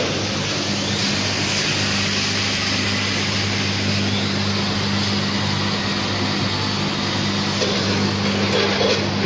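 Multihead weigher running, feeding puffed snacks through its hoppers: a steady low hum under an even noisy machine sound that does not let up.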